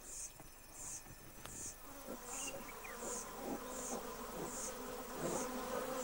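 An insect chirping: short high-pitched chirps, evenly repeated about every two-thirds of a second, over a faint low steady hum.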